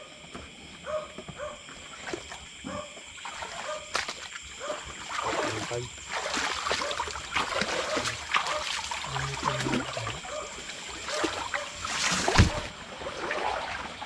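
Water splashing and trickling as someone works in shallow water, with short repeated calls in the first few seconds and a sharp splash or knock about twelve seconds in.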